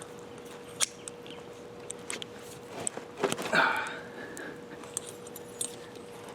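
Scattered clicks and light scraping from a metal tire-plug insertion tool being worked into a tire puncture, with a short whining sound a little past halfway and a faint steady hum.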